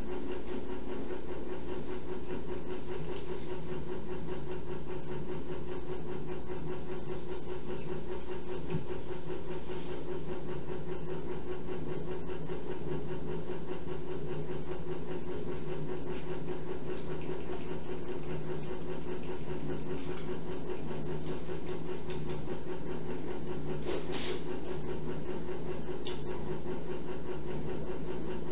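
A steady mechanical hum with a constant low tone and a hiss, unchanging throughout, with one brief high sound about 24 seconds in.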